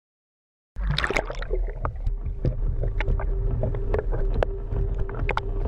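Small boat on the water: a low rumble with scattered splashes and knocks and a steady hum underneath, cutting in abruptly just under a second in.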